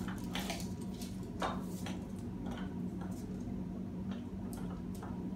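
A rolling dough cutter pushed through a sheet of soft treat dough on parchment paper: soft squishy scraping with irregular faint ticks, over a steady low hum.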